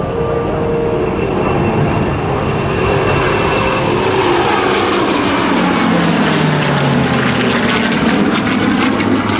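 Formation of an F-22 Raptor, F-15E Strike Eagle, F-86 Sabre and P-51 Mustang flying past overhead: steady, loud engine noise whose pitch drops about halfway through as the aircraft pass.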